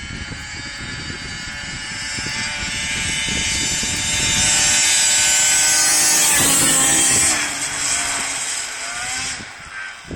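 2006 Arctic Cat Sno Pro 440 snowmobile's two-stroke engine running at high revs. It grows louder as the sled approaches and passes close by about six to seven seconds in with a drop in pitch, then fades as it races away.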